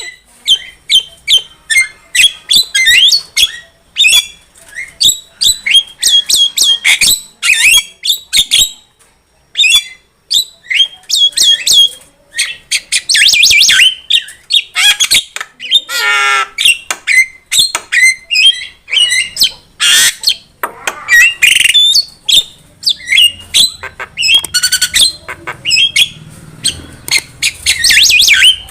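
Javan myna calling vigorously in quick runs of short, sharp, high whistled and chattering notes. A harsh rasping call comes about halfway through, and there is a short lull about a third of the way in.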